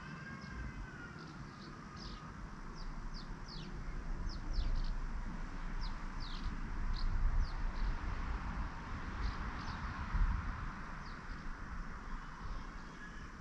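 Black redstart fledgling giving short, high, downward-sliding calls, a dozen or so at irregular intervals, over a low rumble that swells in the middle.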